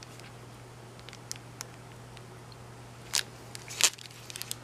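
Plastic packaging of clear stamp sets being handled: scattered soft clicks and crinkles, with louder rustles about three and four seconds in, over a faint steady hum.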